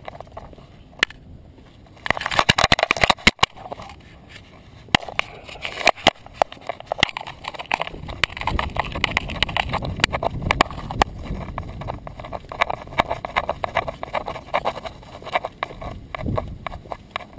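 A small terrier walking along pavement, heard close up from a camera strapped to its back: quick, irregular clicking and rattling of its steps, starting about two seconds in, over a low rumble of handling noise.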